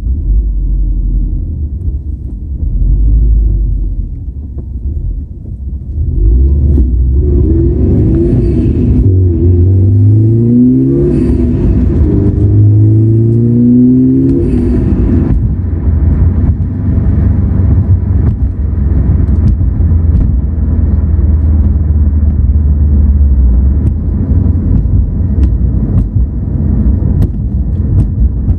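2016 Subaru WRX STI's turbocharged flat-four engine under acceleration, its pitch climbing twice about a third of the way in, then a steady low rumble. Somewhere in this is the whirring, metallic noise under acceleration that the owner cannot identify and says is stronger when the gas is released.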